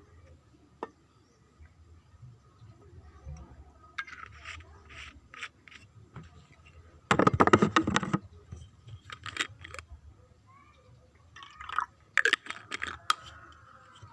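Water being poured among clicks and knocks of handling, with a loud rush of pouring lasting about a second, about seven seconds in.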